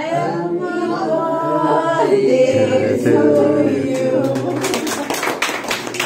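A small group of people singing a birthday song together, unaccompanied. About four and a half seconds in, the singing ends and gives way to hand clapping.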